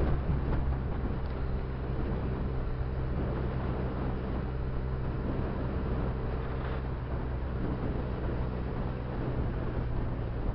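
Benelli TNT300's 300 cc parallel-twin engine running at a steady cruise, with wind rushing over the microphone.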